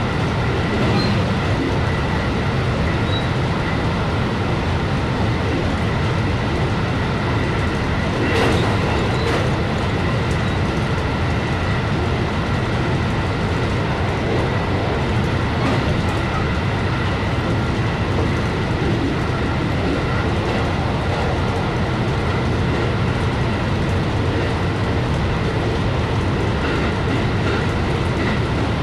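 JR West 223 series electric train running at about 125 km/h, heard inside the driving cab: a steady rumble of wheels on rail with thin steady high tones above it, slowing slightly from about 128 to 122 km/h. A brief louder clatter stands out about eight and a half seconds in.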